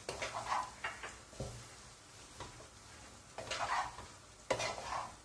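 Wooden spatula stirring and tossing fried rice in a nonstick pot while it fries: a run of uneven scraping strokes, the loudest about a second before the end.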